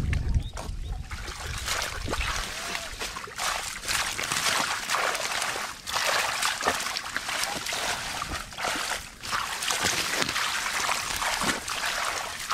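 Shallow muddy water splashing and sloshing as hands dig and churn through it, in a quick, irregular run of splashes.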